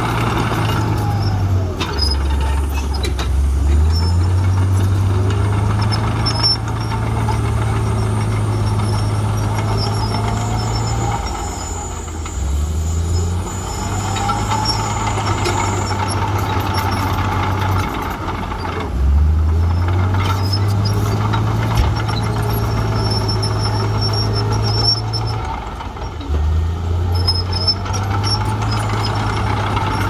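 Diesel engines of a crawler bulldozer and an excavator working earth. The low engine note drops sharply and climbs back four times, about every six or seven seconds, as the machines change load, with a high whine that rises and falls over it.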